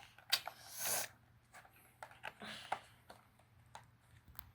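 A small mystery box being opened by hand, with scattered scrapes, rustles and clicks of packaging, the busiest stretch in the first second.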